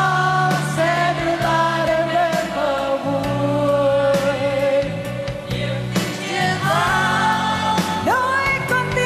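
Pop song performed live: a woman singing into a microphone over band backing, holding one long note in the middle before the melody moves on.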